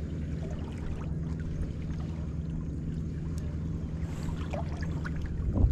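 A steady low hum from a small fishing boat, with water gurgling and lapping around the hull. A few faint light clicks come about four seconds in.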